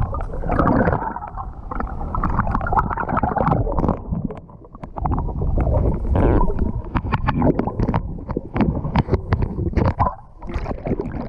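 Muffled underwater rumble of river current on a submerged camera, with many short clicks and knocks throughout. The rumble drops briefly twice, about four and a half seconds in and near the end.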